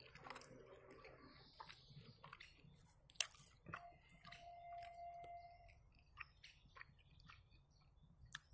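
Faint chewing of a fried meat pie (belyash), with soft scattered mouth clicks. A faint steady tone sounds for about two seconds in the middle.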